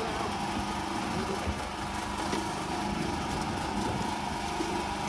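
An engine on board the boat running steadily at idle, a continuous even hum.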